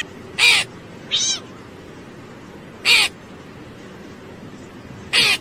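A crow cawing three times, loud harsh calls spaced about two and a half seconds apart, with a short meow about a second in.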